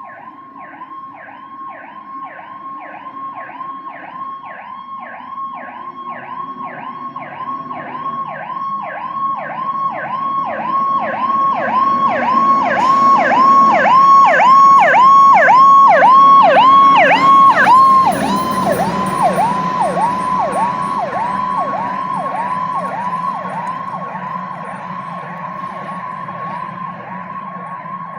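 A fire engine's electronic siren yelping, about two quick falling-and-rising sweeps a second. It grows steadily louder as the truck approaches, is loudest about two-thirds of the way in, then drops off and fades as it passes, with a slightly lower pitch. The rumble of the 1982 Hahn's Detroit Diesel 8V71 engine sits underneath.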